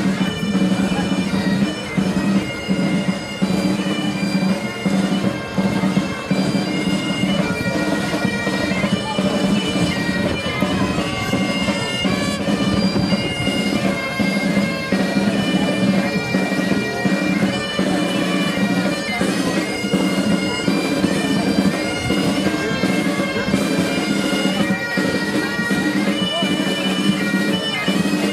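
Scottish Highland bagpipes playing a marching tune, the melody moving note to note over a steady drone.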